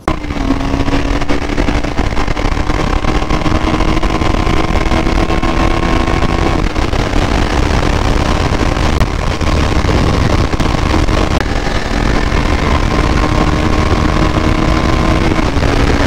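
Motorcycle engine running at a steady speed while riding, over a constant rush of road and wind noise.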